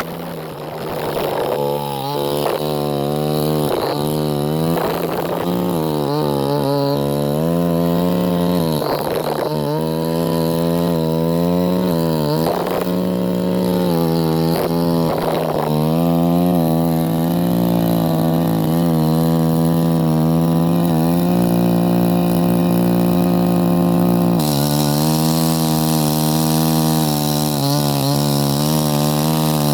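Two-stroke chainsaw running at high revs while cutting into a tree, its pitch dipping and recovering repeatedly as the chain loads in the wood, then holding steadier in the second half.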